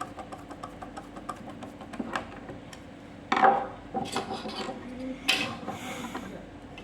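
Metal parts of a door lock being handled and worked by hand: light clicks, then a clatter about three seconds in, smaller clicks, and another clatter near the end.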